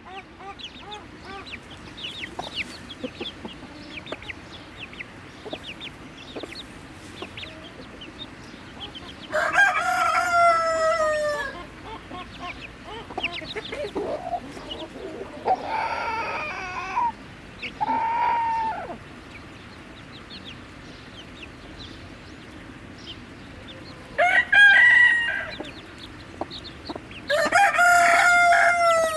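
Flock of chickens clucking steadily, with loud drawn-out crows about five times, the first about ten seconds in and the last near the end.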